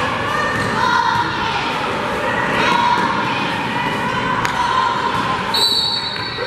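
Basketball game in a gym: ball bouncing and thudding on the hardwood under steady crowd voices, then a referee's whistle blown once, held for under a second near the end.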